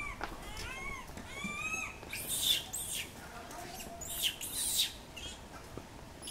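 A series of short, high-pitched animal calls: several arched, whistle-like notes in the first two seconds, then sharper, shriller calls that drop in pitch, a few at a time.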